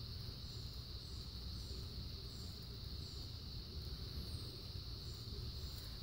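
Outdoor ambience: a steady high-pitched drone, with a faint short high chirp repeating a little faster than once a second, over a low rumble.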